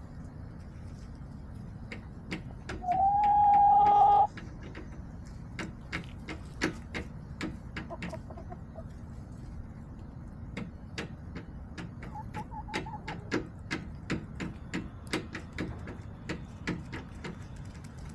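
Backyard chickens: one loud drawn-out call, held for about a second and a half, about three seconds in, and a couple of fainter short calls later. These sit over a steady run of sharp, irregular taps.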